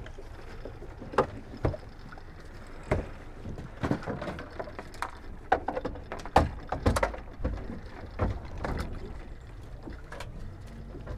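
Irregular knocks, clacks and splashes on a small open fishing boat as gear is handled over the side, above a steady low rumble of water and wind.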